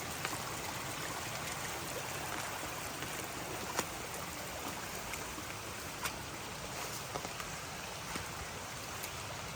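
Spring flooding after heavy storm rain, its water rushing and bubbling in a steady stream, with a few sharp clicks.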